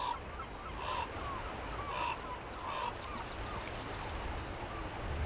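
Birds calling, four calls in the first three seconds, over a steady low rumble of wind and small waves breaking on a beach.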